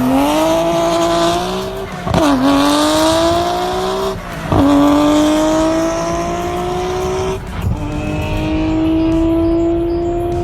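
Car engine accelerating hard through the gears: a rising engine note that drops back at each upshift, three shifts in all.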